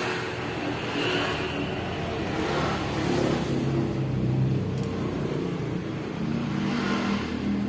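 Suzuki GT750 two-stroke triple engine running, its pitch rising and falling as it is revved.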